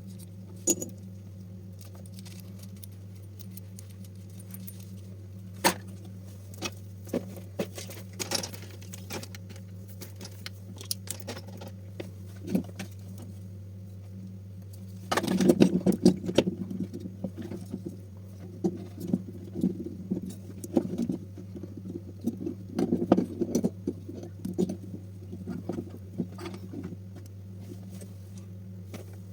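Small metal tools and parts being handled during a speaker repair: scattered clicks and rattles, with a busier burst of clattering about halfway through, over a steady low hum.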